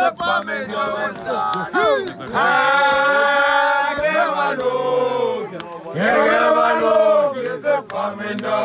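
A group of voices singing a traditional Xhosa chant, with long held notes about two and a half and six seconds in.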